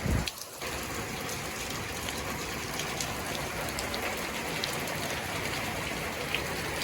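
Hail and rain falling: a steady patter with scattered sharp ticks of individual hits. A short low thump right at the start, followed by a brief dip.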